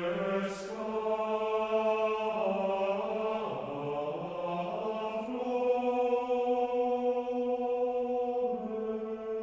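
Choral music: voices chanting long held chords that move to a new chord every few seconds.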